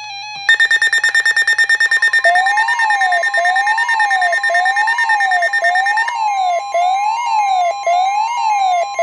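Electronic emergency alert tones for a severe thunderstorm warning. A rapidly pulsing high beep starts about half a second in. About two seconds in, a siren-like tone joins it, rising and falling about once a second over a steady tone; the pulsing beep drops out around six seconds while the sweeping tone continues.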